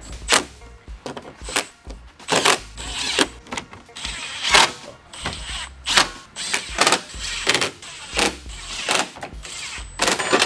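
Cordless power tool running in short bursts, driving bolts into an aluminium skid plate, among a string of sharp metallic clicks and knocks.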